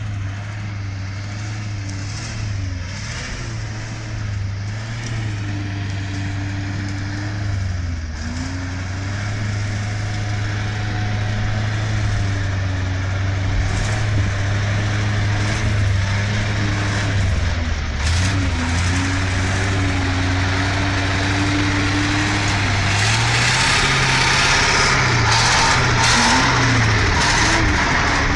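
A machine engine running, its pitch dipping and rising repeatedly as the load or throttle changes, growing louder toward the end, with a rising hiss joining in for the last few seconds.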